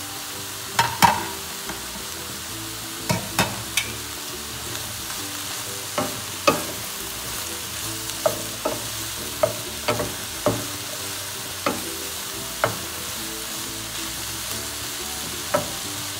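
Wooden spatula stir-frying vegetables and soya chunks in a stainless steel pan, knocking against the pan more than a dozen times at irregular intervals over a steady sizzle.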